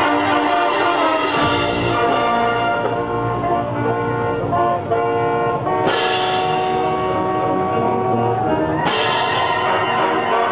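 Concert band of brass and woodwinds playing held, sustained chords, with fuller entries of the whole band twice, about six and nine seconds in.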